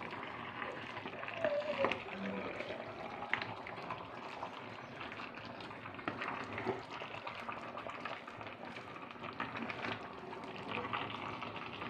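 Tapioca and meat cooking in gravy in a metal pot, simmering with a steady hiss. A wooden spoon scrapes and knocks through the mixture as it is stirred.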